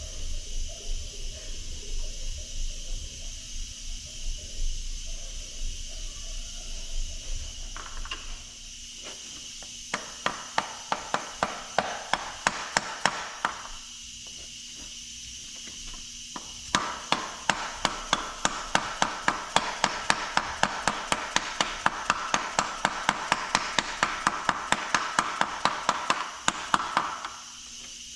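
Hand-tool work on the front crankshaft seal of a Detroit Diesel 2-53: a few irregular knocks and handling sounds, then two long runs of quick, evenly spaced metallic clicks, about three to four a second.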